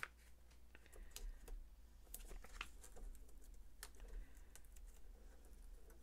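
Faint, scattered small ticks and paper handling noises: foam adhesive dimensionals being peeled off their sheet and pressed onto a die-cut cardstock circle.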